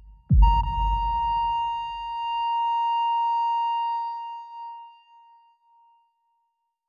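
Heart-monitor flatline sound effect: after a deep heartbeat thump, one steady high beep holds for about five seconds and fades out, signalling that the heart has stopped.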